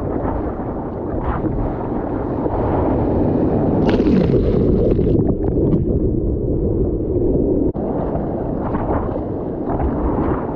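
Wind buffeting a board-mounted camera's microphone over choppy sea water sloshing against a paddleboard. About four seconds in, a breaking wave's whitewater rushes over the board with a brighter hiss that lasts just over a second.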